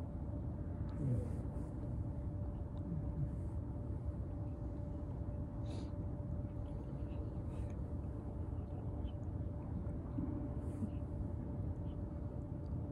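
Outdoor ambience: a steady low rumble with a faint constant hum, and faint distant voices now and then.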